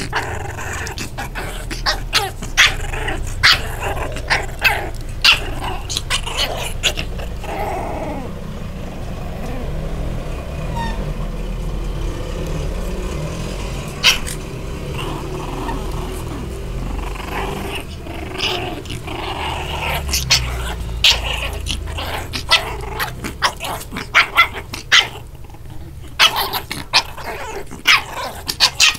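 Puppies growling and yapping in play while being handled, with many short sharp clicks throughout.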